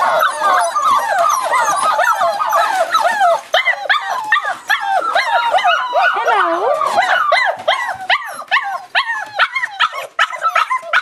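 A litter of five-week-old Boerboel puppies whining and yelping all at once, many high squeaky cries overlapping. The cries thin out into separate short yelps in the last few seconds.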